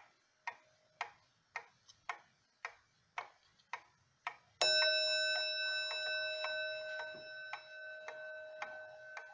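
Skeleton wall clock's mechanical movement ticking about twice a second. About halfway through, it strikes a single loud chime that rings on and slowly fades while the ticking continues.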